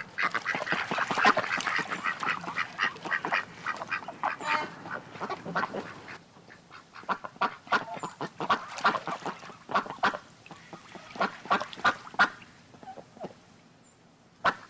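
Ducks quacking: many short, rapid, overlapping quacks for about six seconds, a brief lull, then more quacking that thins out. A single sharp click comes just before the end.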